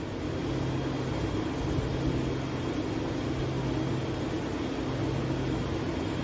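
A steady machine hum with an even hiss under it, with no clear sound of the spoon in the chili flakes.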